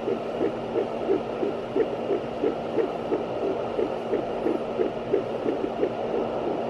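Fetal heartbeat heard through a handheld fetal Doppler's speaker: a fast, even pulse, about three beats a second, over a steady hiss and a low hum.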